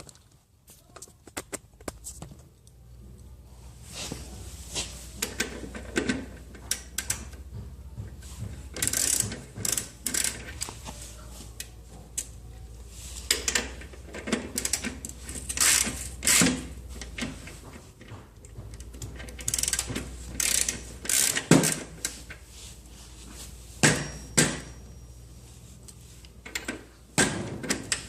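Irregular metallic clicks and clanks of hand tools and drive-chain parts being handled while the old chain of a motorcycle is taken off, over a faint steady low hum.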